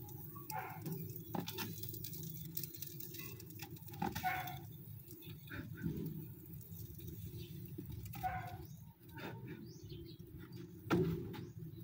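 Grilled fish being lifted off a round wire grill rack and set on a plastic plate: a handful of short, soft handling sounds over a steady low hum.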